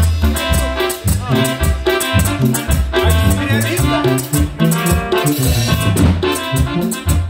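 Live cumbia band playing an instrumental passage between sung verses: electronic keyboards carry the melody over bass and drums, with a shaker-like rattle keeping a steady beat.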